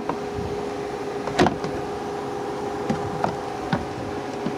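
A plastic jet-ski side panel clicking and knocking as it is handled and fitted into its tabs: a few sharp clicks, the loudest about a second and a half in, over a steady background hum.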